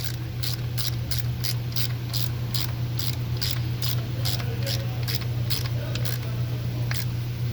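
Car engine idling with a steady low hum after a failed ignition coil was replaced. A regular sharp ticking, about three ticks a second, runs over it and stops about six seconds in.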